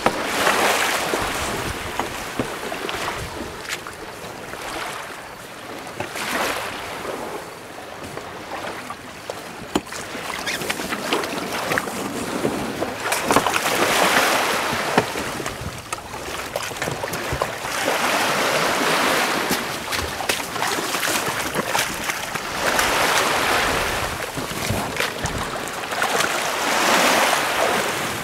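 Sea water washing and splashing around a small boat in slow surges every few seconds, with wind buffeting the microphone and occasional sharp knocks.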